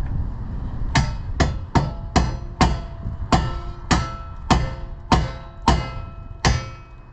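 Hammer striking metal, about a dozen steady blows roughly two a second, each with a short metallic ring, knocking a roll-cage part that is not fitting properly into place.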